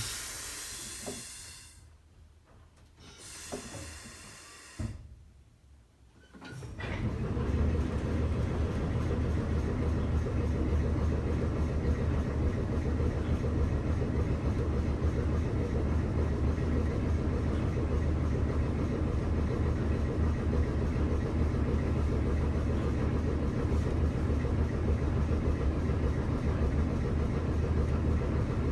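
Streetcar air brake hissing twice as air is let in and vented through the self-lapping foot brake valve, then the car's air compressor starts about six seconds in and runs steadily, a loud low hum with a fast rattle, recharging the brake reservoir.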